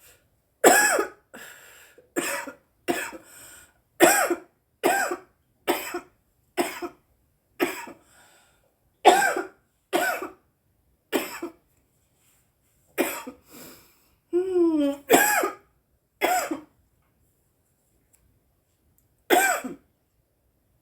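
A woman coughing hard in a long fit of about fifteen coughs roughly a second apart, the cough of someone who has just smoked cannabis. A short vocal sound breaks in partway through, and after a pause comes one last cough near the end.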